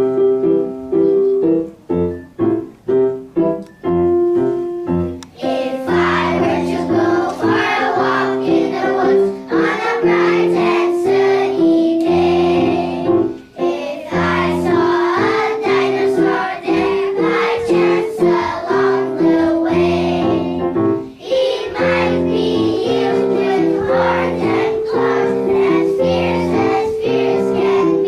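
Piano introduction of separate notes, then a group of children singing a song together over the piano accompaniment from about five seconds in.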